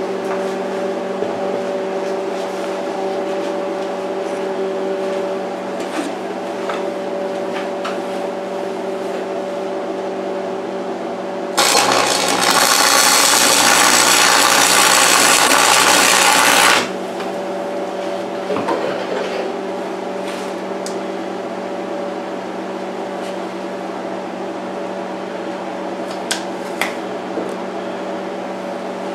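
Arc welding on rusty steel tubing: a loud, steady crackling hiss from the arc starts about twelve seconds in, lasts about five seconds and cuts off sharply, a tack weld joining the axle tube to the square-tube tongue. A steady hum from the welding machine runs beneath it.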